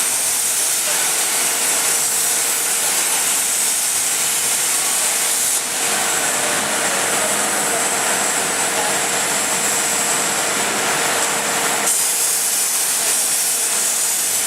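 CNC plasma cutting torch hissing steadily as it cuts, with a faint steady whine underneath. The hiss changes in tone about five and a half seconds in and again near twelve seconds.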